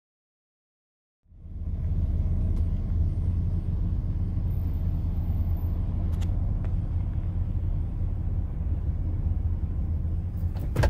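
Digital silence for about a second, then the steady low rumble of a vehicle's engine and running gear heard from inside the cab, with a few faint clicks.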